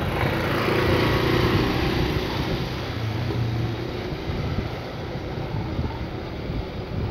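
Steady street noise with a small motor scooter's engine running.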